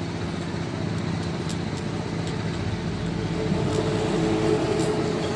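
Steady background motor-vehicle noise with a low engine hum, and a few faint light ticks.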